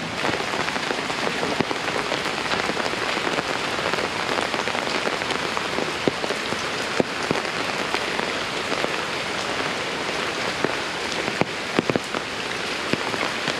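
Steady heavy rain falling on the wet ground and surroundings, with louder single drops striking close by every so often.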